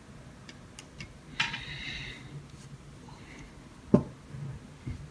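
Small parts and tools being handled during a laptop teardown: a few light clicks and a brief scrape, then one sharp tap or knock about four seconds in.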